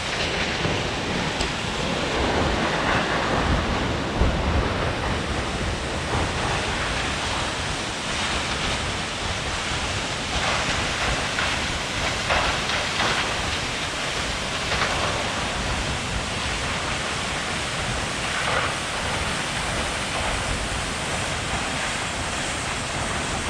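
Watson Falls, a waterfall heard up close: a steady, loud rush of falling water.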